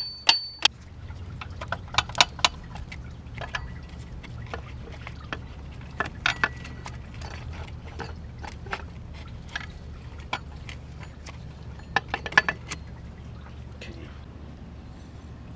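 A few sharp, ringing hammer taps on metal in the first half-second, tapping the engine's water pump loose, then scattered clicks and knocks of tools and metal parts being handled over a steady low hum.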